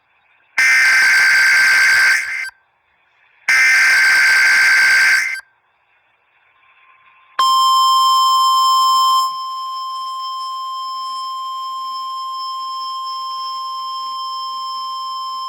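NOAA Weather Radio alert signals. First come three bursts of SAME digital header data, each about two seconds long with about a second of silence between them. Then, about halfway through, the steady 1050 Hz warning alarm tone starts; it is louder for its first two seconds and holds for about nine seconds, sounded as the weekly test of the warning alarm feature.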